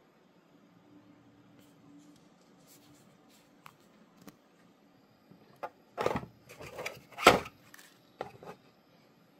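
Hard plastic knocks and rattles as a hand handles a 3D-printed honeycomb holder and the device standing in it, a cluster of sharp knocks in the second half with the loudest about seven seconds in.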